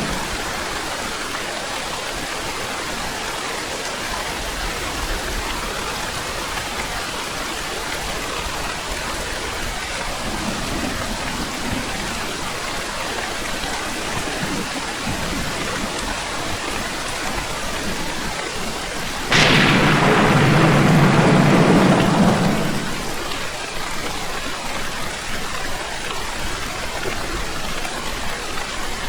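Steady heavy rain, with a soft, low roll of thunder about ten seconds in. About nineteen seconds in comes a sudden, loud thunderclap that rumbles for about three seconds before sinking back under the rain.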